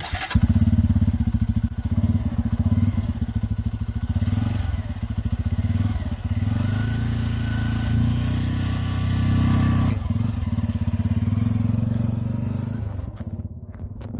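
Bajaj Pulsar N250's single-cylinder engine running through its dual-barrel exhaust, a steady pulsing note with small swells. It starts abruptly, dips briefly about ten seconds in, then falls away near the end.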